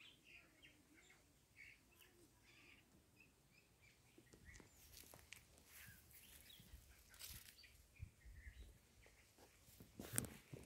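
Near silence outdoors, with faint bird chirps in the first few seconds, then soft scattered rustling and a few louder scuffs near the end.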